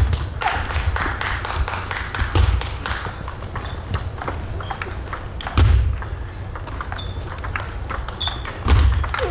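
Table tennis rally: sharp clicks of the celluloid ball striking paddles and the table in quick succession, with several low thuds of players' footwork on the floor.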